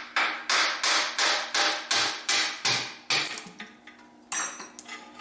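A hammer tapping a valve part off an air compressor's crankcase: a quick, even run of sharp knocks, about three a second, that stops about three seconds in, followed by a brief ringing metallic clink.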